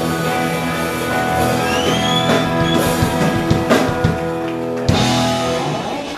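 Live rock band playing: electric guitars and bass holding chords over a drum kit, with cymbal crashes a little under four and five seconds in.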